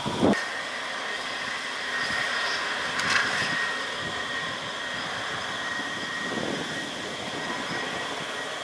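Bus engine running as the bus drives off along the road, under a steady high-pitched whine and hiss. A sharp click comes near the start, and another about three seconds in.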